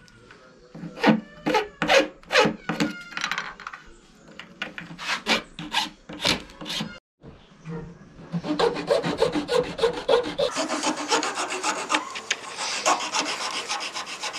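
Hand file scraping the edges of a black plastic GoPro mount, trimming it to shape: separate strokes a few a second at first, then after a short gap about seven seconds in, a run of quicker, closer strokes.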